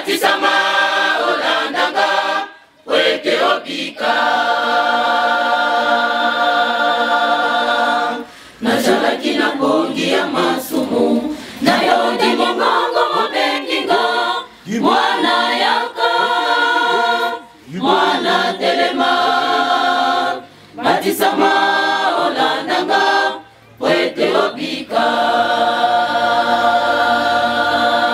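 Women's choir singing a cappella in harmony, phrases of long held chords broken by short pauses for breath every few seconds.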